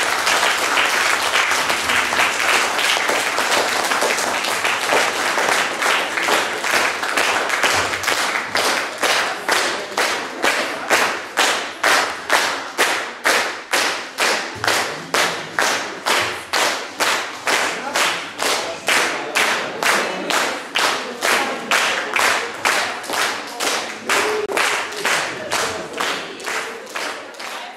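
Audience applause that turns, about eight seconds in, into rhythmic clapping in unison at about two claps a second, fading out at the very end.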